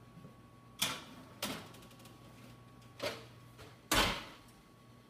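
A metal baking sheet clanking against the wall oven's racks as it is slid in, three sharp knocks, then the oven door shut with the loudest thud just before four seconds in.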